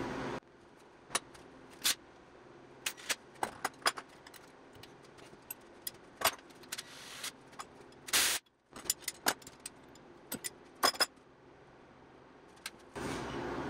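Scattered light metallic clicks and clinks of hand tools against a bare engine cylinder head and its studs, with one brief louder scraping rustle about eight seconds in.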